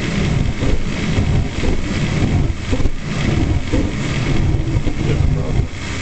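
Carrier Weathermaker gas furnace burners just lit, burning with a loud, low rumble that surges and falls irregularly, then drops off near the end. The burners pulsating on and off like this during the combustion cycle should not be happening.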